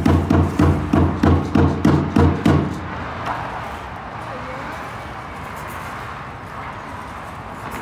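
Huehuetl drum beaten in a steady, loud rhythm of about three strokes a second, with the dancers' ankle rattles shaking on the beats. The drumming stops abruptly about two and a half seconds in, leaving low voices and outdoor background noise.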